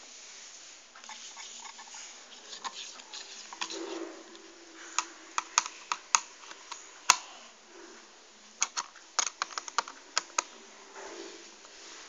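Screwdriver tip and small parts clicking and tapping against the metal hard-drive caddy and plastic chassis of an opened HP Mini notebook. The clicks come in quick, irregular runs, with one louder click near the middle.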